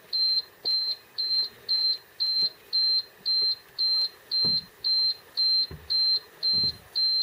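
An electronic warning beeper pulsing steadily, one high beep about every half second. A few soft low knocks come in the second half.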